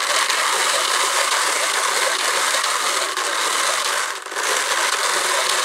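Drum carder turning steadily as its toothed drums card wool fibre, a dense, even mechanical noise with a brief dip about four seconds in.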